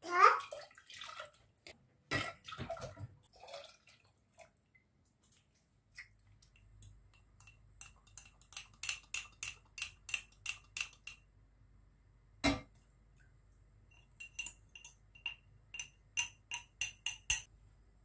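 Milk poured into a drinking glass, the pitch rising as it fills, followed by some clatter. Then a metal spoon clinks against the glass at about three or four clinks a second as the contents are stirred, in two runs with a single knock between them.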